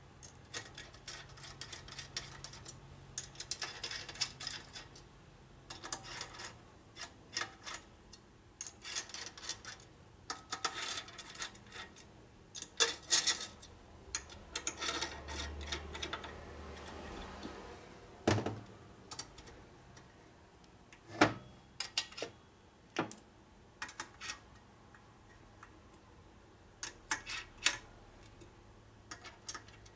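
Scattered light metallic clicks and taps of a screwdriver working the screws of an aluminium motorcycle engine cam cover, with a few sharper knocks about halfway through.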